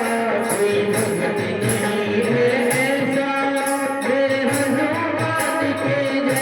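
Devotional kirtan music: a held melody line over a steady drum beat and rhythmic jingling of small cymbals.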